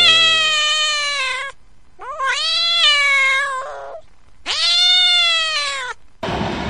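A cat meowing three times, each meow long and drawn out, with short pauses between them. A low steady tone cuts off about half a second in, and a rushing rumble like a passing train comes in near the end.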